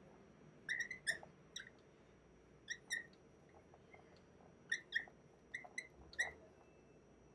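Dry-erase marker squeaking on a whiteboard while writing: about a dozen short, high squeaks in small groups of two or three, with pauses between strokes.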